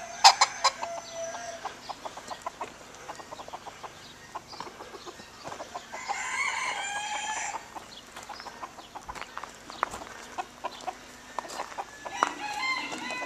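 Chickens clucking in short, sharp notes. A rooster crows once, a long call about six seconds in, and another long call begins near the end.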